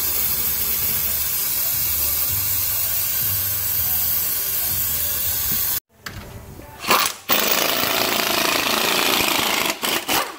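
Aerosol spray can hissing steadily as solvent is sprayed into the emptied differential housing to clean it out. It cuts off abruptly about six seconds in, and a short clatter follows, then a few seconds of a power tool running and a few clicks.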